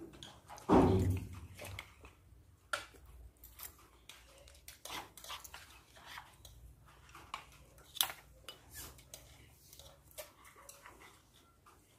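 Clinks and clicks of spoons and chopsticks against ceramic bowls and plates during a meal, scattered irregularly, with a louder low thump about a second in.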